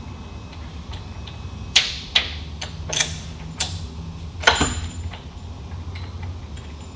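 A large washer and a black adjustable handle are fitted onto a metal stud and turned on by hand, giving about five sharp metal clicks and clacks between about two and five seconds in, over a low steady hum.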